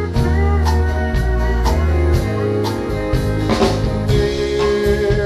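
Live country band playing an instrumental passage between sung verses: guitar over a steady drum beat and bass.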